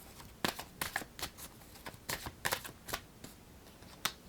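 Angel Answers oracle cards being shuffled and handled: a string of quick, irregular papery flicks and taps.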